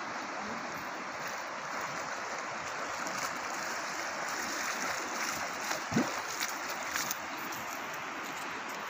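Steady rush of flowing river water, with a few splashes of a person wading through the shallows in the middle stretch and a brief low thump about six seconds in.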